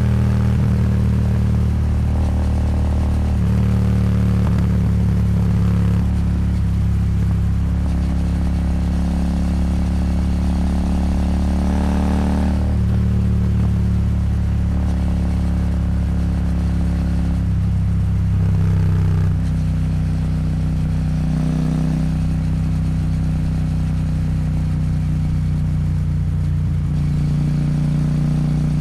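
Royal Enfield Super Meteor 650's 648 cc parallel-twin engine running through a Rhino Racing slip-on exhaust while under way. The engine pitch shifts up and down several times as throttle and speed change, with wind noise throughout.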